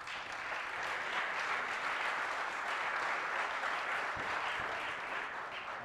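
Audience applauding, starting abruptly and easing off a little near the end.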